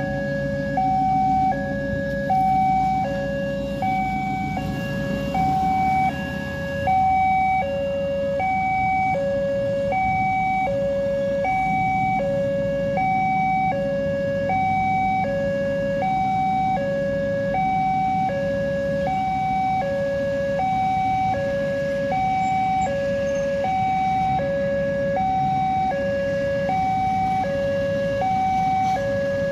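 Alkmaar railway level-crossing alarm sounding its two-tone electronic warning, a higher and a lower note alternating evenly, each held about three-quarters of a second, which signals that a train is approaching. A steady low rumble of road traffic runs underneath.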